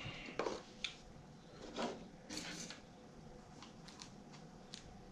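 Quiet, scattered clicks and taps from small drone parts being handled and fitted together, with a brief rustle about two and a half seconds in.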